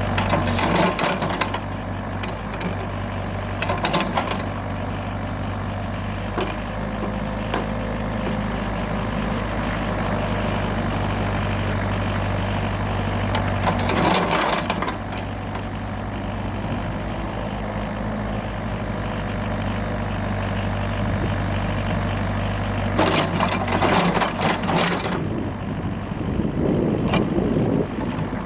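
Hyundai R555-7K excavator's diesel engine running steadily, with several short bursts of hiss and rattle from the working machine, the longest about halfway through and again near the end.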